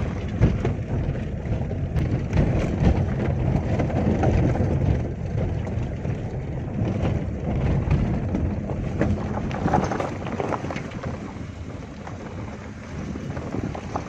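Car driving over a rough dirt track, heard from inside the cabin: a steady low engine and road rumble with scattered knocks and rattles from the bumps.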